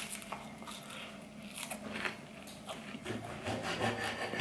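Biting into and chewing a puffed spelt cake topped with chicken, with a sharp crunch at the bite and a few crisp crunches after it. A low hum comes in near the end.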